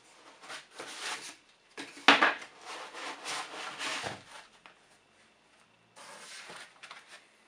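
Foam packing and a cardboard box rubbing and scraping against each other as an oscilloscope is pulled out of its carton, with a sharp knock about two seconds in. A second, shorter spell of rubbing comes about six seconds in.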